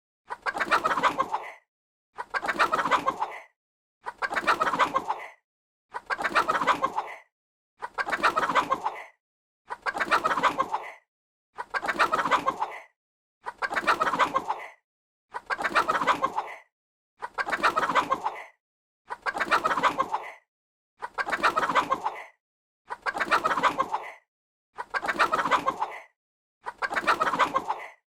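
A chicken clucking in bursts of about a second, each followed by a short silence. The same call repeats about every two seconds, like a loop.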